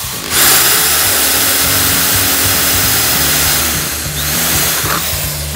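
Electric drill running under load, boring the mounting hole for the horn in an eScooter through a drilling template, with a faint steady motor whine under the cutting noise. It starts about a third of a second in and stops about a second before the end.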